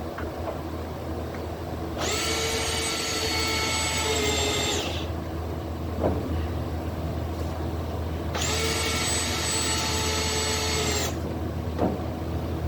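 A power tool motor runs in two bursts of about three seconds each, a few seconds apart, with a steady whine. A constant low hum lies underneath, and light knocks sound between the bursts.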